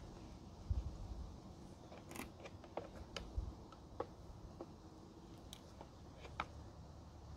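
Scattered small plastic clicks and taps, about a dozen at irregular intervals, from hands handling a cable and fittings inside a plastic weatherproof electrical box.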